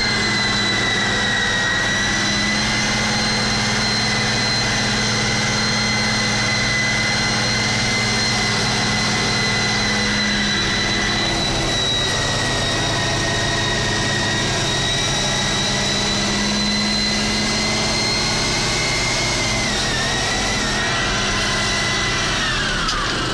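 Tractor engine running steadily under load, heard inside the cab, with a steady high whine over the engine hum. Near the end the whine glides down in pitch.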